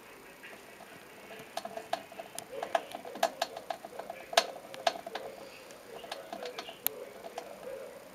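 Irregular sharp plastic clicks and ticks as a pet pied mouse (Mus japonica) works at the cap of a plastic bottle water drinker with its mouth and paws, prying at the opening. The clicks start about a second and a half in, come thickest in the middle with one louder click around four seconds in, and thin out near the end.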